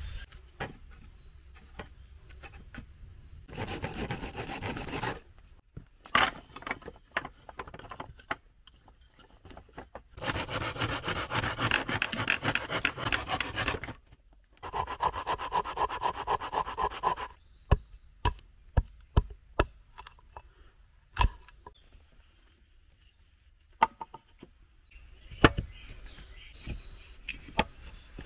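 Dry wood being hand-sawn in three bursts of rasping strokes, the longest about four seconds. The sawing is followed by a string of sharp wooden knocks and clicks.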